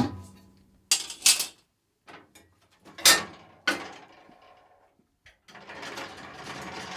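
A transit strap being unfastened and pulled off a dust extractor: a few sharp clicks and rattles of the buckle, then a longer rubbing scrape in the last couple of seconds as the strap slides free.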